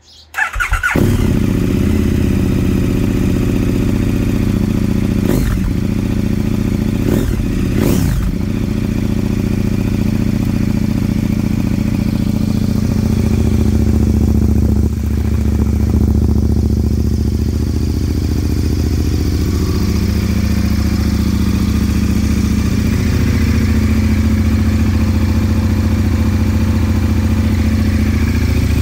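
2018 KTM 1290 Super Adventure S V-twin cold-starting through an Akrapović exhaust with the baffles removed: a brief whir from the starter, then the engine catches and runs loud. There are a few brief swells in pitch several seconds in, then it settles into a steady, deep idle.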